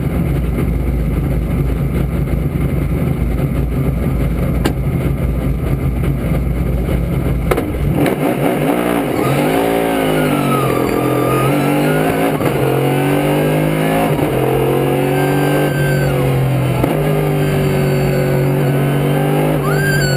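Two-seat Daytona Prototype race car's engine heard from inside the cockpit. It runs steadily with a heavy low rumble for the first several seconds. From about eight seconds in, the revs climb and drop back in steps again and again as it shifts through the gears.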